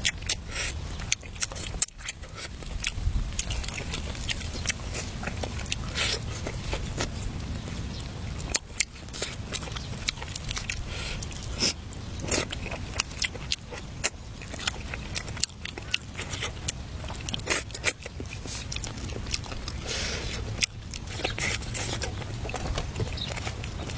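Eating: crisp biting and chewing, heard as many short irregular clicks and crunches over a steady low rumble.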